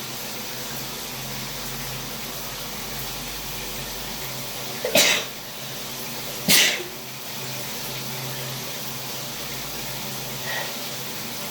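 A person sneezing twice, about a second and a half apart, from a cold, over the steady hiss of a running shower.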